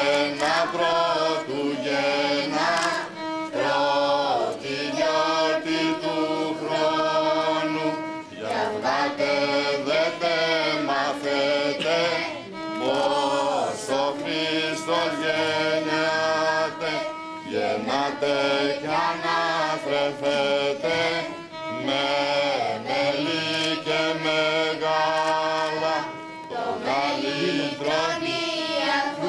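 Children's choir singing Greek Christmas carols (kalanta) with violin accompaniment, phrase after phrase with short breaks between lines.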